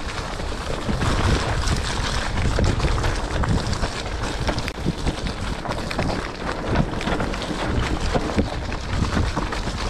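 Wind buffeting the microphone over the continuous noise of a mountain bike riding a muddy trail, with frequent short knocks and rattles from the bike.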